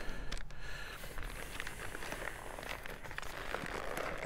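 Grease-soaked butcher paper rustling and crinkling softly as it is peeled open from around a wrapped brisket.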